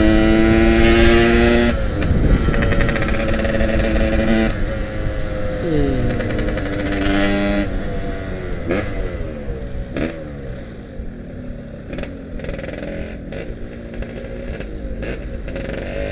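Yamaha RX King's two-stroke single-cylinder engine running under way, held at steady revs at first, then falling and rising in pitch several times as the throttle is eased and reopened. It is quieter over the second half.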